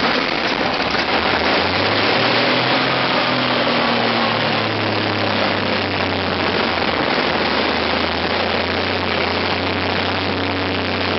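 Continental AV-1790 air-cooled V12 tank engine running on a test stand, a loud, steady rushing noise over a low engine drone. Its revs rise slightly about a second and a half in.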